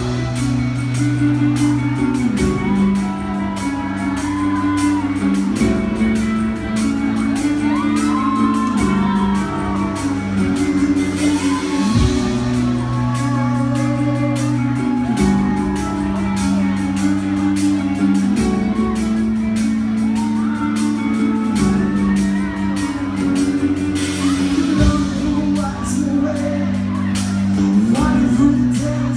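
Live band performing a song, a woman singing lead over a steady drum beat and a low bass line that changes note every few seconds, in a large hall.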